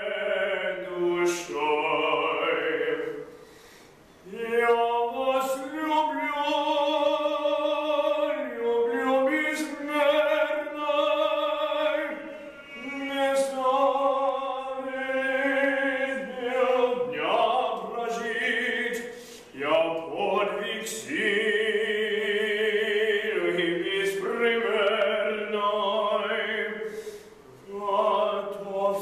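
A man singing in an operatic style, holding long notes with a wavering vibrato, with brief pauses for breath between phrases.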